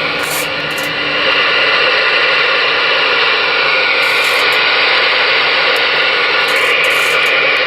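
Steady static hiss from the Galaxy DX-98VHP radio's receiver, on the air with no signal coming through; it gets a little louder about a second in.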